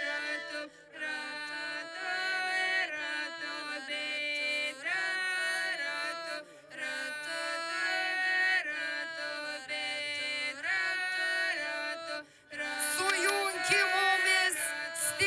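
A group of voices singing a slow, chant-like folk song in phrases of long held notes with short pauses between. About 13 seconds in the singing turns louder and brighter, with higher voices.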